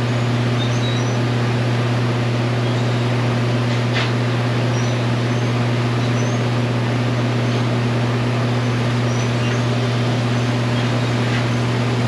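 Steady low machine hum, with a few faint high chirps now and then and a faint tick about four seconds in.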